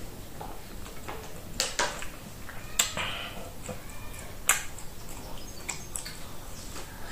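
Hand-eating sounds of Quaker-oats fufu being pinched and dipped into peanut butter soup with the fingers: scattered sticky, wet clicks and smacks, about five, the loudest about four and a half seconds in.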